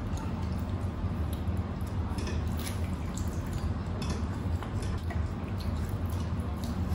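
Sinigang broth being spooned and poured between bowls: soft drips and liquid sounds, with scattered light clinks of spoons against the bowls, over a steady low hum.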